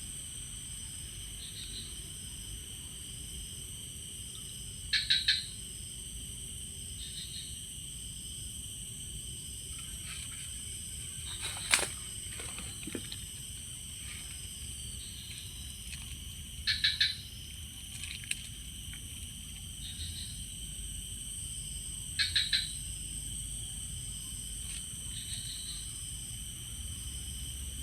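Steady chorus of crickets and other insects, high-pitched trilling at several pitches throughout. A short call of three or four quick notes comes three times, about 5 s, 17 s and 22 s in. One sharp knock comes about 12 seconds in.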